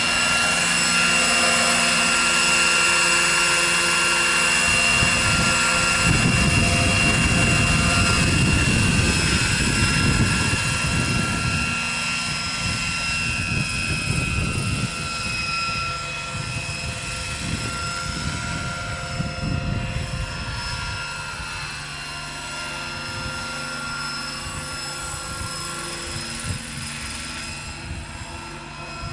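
Electric-powered EC 145 scale model helicopter in flight, its Kontronik electric motor and gearing giving a steady high whine over the rotor noise. A gusty low rumble comes through in the middle, and the whole sound fades as the helicopter climbs away.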